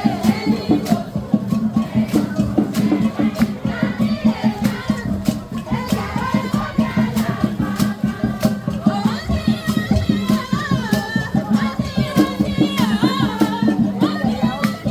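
Music driven by fast, steady percussion over a constant low hum, with voices singing; the singing stands out more clearly about halfway through.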